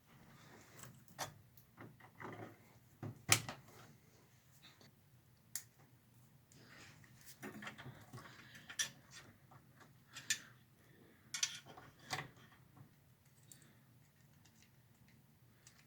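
Scattered clicks, knocks and rustling of power-supply cables being handled and plugged into their connectors in a desktop PC, the sharpest click about three seconds in and a cluster of clicks near the end.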